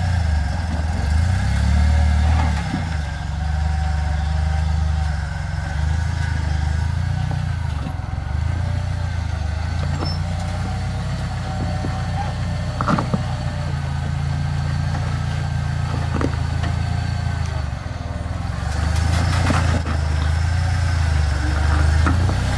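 Jeep rock crawler's engine running steadily at low revs as it creeps down over boulders, with a few sharp knocks of the vehicle on rock, the clearest about halfway through.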